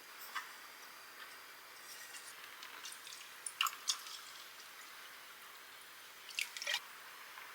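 Several sharp clicks and crackles, in small clusters about half a second, four and six and a half seconds in, over a faint steady hiss.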